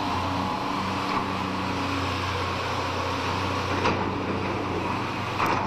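Construction-site machinery engine running steadily: a low, even hum over a wash of noise, with a few faint knocks.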